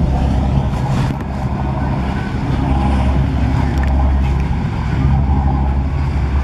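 Small motorboat's engine running steadily as the boat comes in toward the quay, with a low, even hum.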